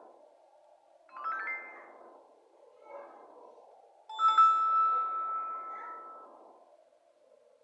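ZTE C332 MIDI ringtones played through a Multilaser P9091 phone's small loudspeaker. A quick run of notes comes about a second in, then about four seconds in a louder chime whose held note fades out over about two seconds.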